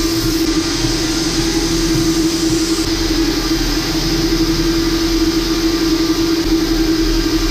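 Monarch M2XC-RS3.2DF circular knitting machine running at speed: a steady mechanical running noise with a strong, even hum and no change in pace.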